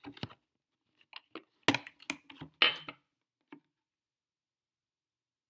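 A few short clicks and knocks from a shot glass and a plastic juice jug being handled while drinking, two of them louder, about two and three seconds in.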